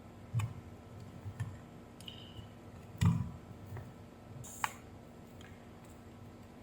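Scattered small clicks and knocks of tools and electronic parts being handled on a workbench, the loudest about three seconds in.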